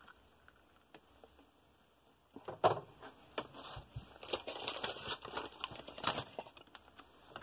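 Irregular crinkling, rustling and clicking close to the microphone, like something being handled, starting about two seconds in after near silence.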